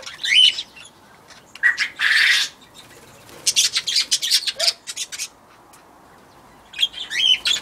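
Small pet birds, a budgie and a quail, chirping in quick high bursts, with short rising call notes near the start and near the end. About two seconds in there is a brief harsh noisy sound, like a squawk or a flutter of wings.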